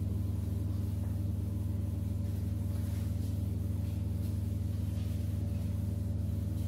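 A cloth wiping chalk off a chalkboard, faint soft swishes under a steady low hum.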